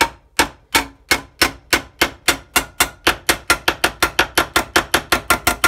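A hammer peening a scythe blade's edge on a bench vise: about 25 even, sharp metal strikes, speeding up from about three to about six a second. This is the cold-hammering that thins the edge to sharpen it.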